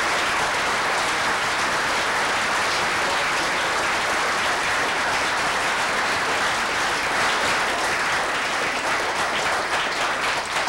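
Audience applauding: dense, steady clapping from a full room that begins to thin into separate claps near the end.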